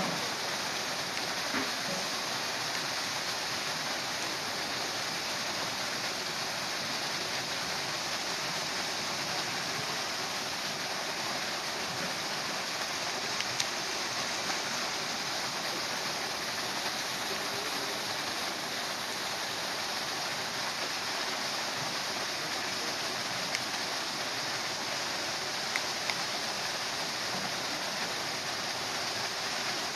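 A steady rushing noise, even throughout, with a few faint isolated clicks.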